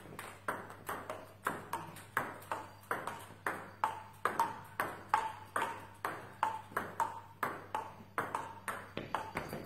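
Table tennis rally: the ball clicking off the bats and table in a steady, even rhythm, about two to three strikes a second, each with a short ringing ping.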